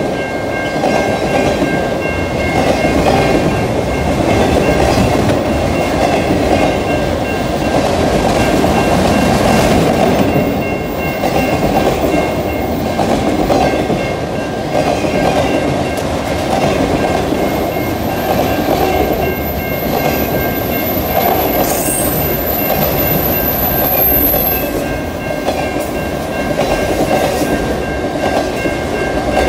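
Freight train cars rolling steadily past, their wheels clicking and rumbling over the rails. A thin high-pitched whine rides over it for several seconds past the middle.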